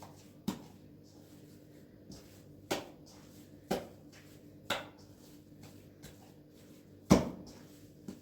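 A series of about five sharp knocks or clatters at uneven intervals, each ringing briefly; the loudest comes near the end.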